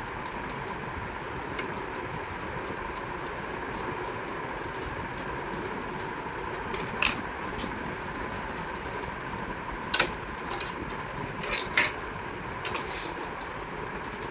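A few sharp clicks and clinks of hard parts being handled, the loudest about ten seconds in and a quick pair near the end, over a steady background hum.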